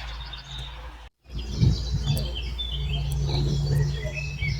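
Songbirds chirping and calling in short bursts, over a steady low rumble. The sound cuts out briefly about a second in, then the chirping resumes.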